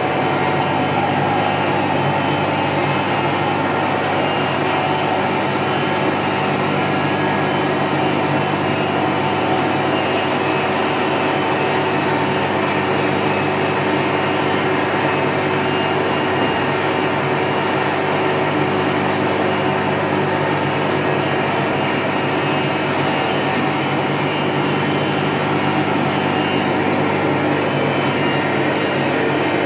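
1988 Bavelloni PR 54 straight-line glass edging machine, with five grinding wheels, running steadily: a constant motor hum with several fixed tones.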